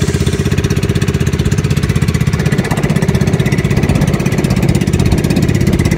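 Small fishing boat's engine running steadily under way, a fast even chug.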